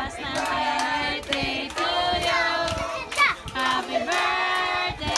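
A group of people singing together, with hand claps.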